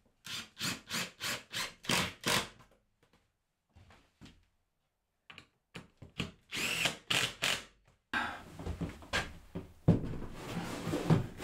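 Cordless impact driver driving screws: a run of about seven short bursts in quick succession, then two longer bursts a few seconds later. Near the end come a couple of sharp knocks and handling noise.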